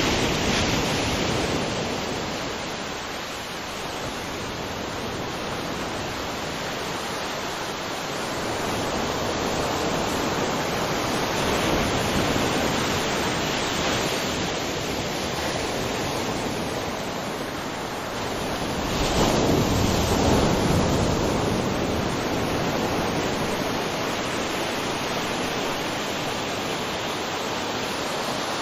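Waterfall rushing steadily, a continuous wash of falling water that swells louder for a couple of seconds about two-thirds of the way in.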